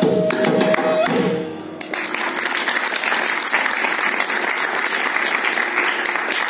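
A Carnatic ensemble ends a piece on a held bamboo flute note over mridangam and kanjira strokes, which stops about a second in. Audience applause follows and carries on steadily.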